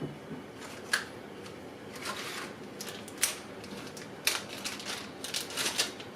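Handling and unpacking of camera gear: a scattered series of sharp clicks and short rustles of packaging, about a dozen in all, some in quick runs near the end.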